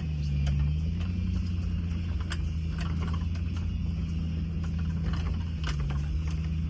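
Land Rover Discovery engine running at low speed on a rough trail, its pitch wavering a little, with scattered clicks and rattles over the top.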